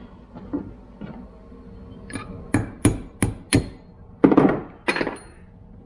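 Hammer striking a steel punch on a disassembled Subaru center differential: four quick, sharp metal strikes, about three a second, followed by two longer, louder ringing clanks.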